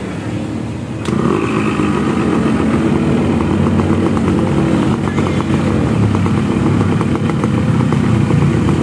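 Yamaha RX King 135 two-stroke single kick-started about a second in, then idling steadily through a newly fitted, bored-out expansion-chamber exhaust.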